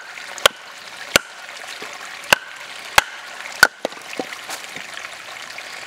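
Wooden baton striking the spine of a Condor Hudson Bay knife to drive it through split wood: about five sharp knocks, roughly a second or less apart, then a few fainter taps near the end.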